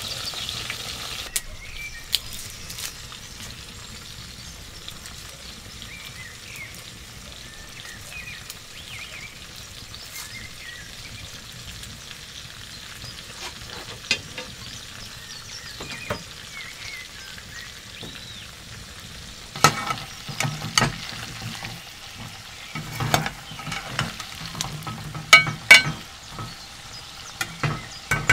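Potato chunks deep-frying in hot oil in a metal saucepan, a steady sizzle. In the last several seconds a metal slotted spoon stirs them, with sharp knocks and clinks against the pan.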